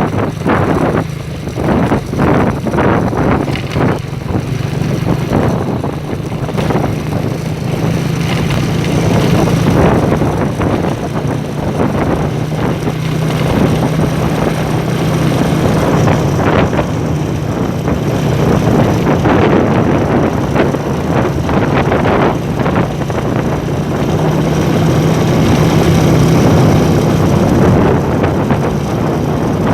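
A vehicle's engine running steadily on the move, with a constant hum, road rumble and wind on the microphone. There are short knocks and jolts in the first few seconds.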